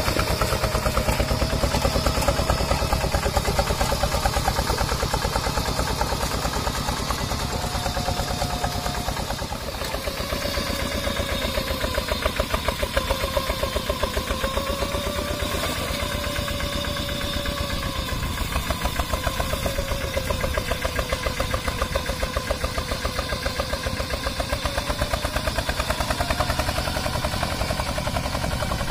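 Single-cylinder diesel engine of a two-wheel hand tractor fitted with a 'serigala' (wolf) aftermarket exhaust, running steadily with a rapid even exhaust beat while it puddles a flooded rice paddy.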